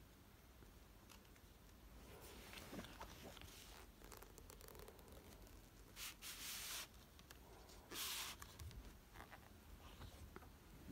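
Cardboard box lid scraping against the box, two brief rasps about six and eight seconds in, amid faint handling noise.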